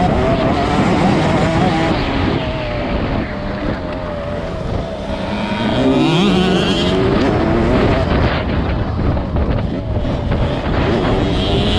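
Motocross bike engine heard from onboard the rider's own bike, running hard at race pace and rising and falling in pitch with throttle and gear changes, with a long climb in revs about halfway through.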